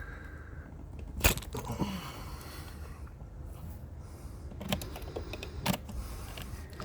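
Handling noise from a phone camera being picked up and moved: a few separate sharp clicks and knocks, the loudest about a second in, over a low steady background.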